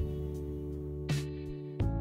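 Background music led by plucked guitar, with sustained notes and new chords struck about a second in and again near the end.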